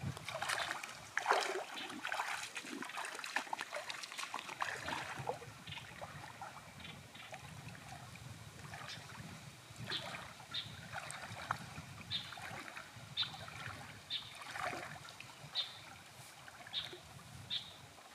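Shallow river water splashing and trickling as a long pole is pushed and worked along a stony riverbed, with a burst of scraping and knocking in the first few seconds. From about halfway on, a short high chirp repeats roughly once a second.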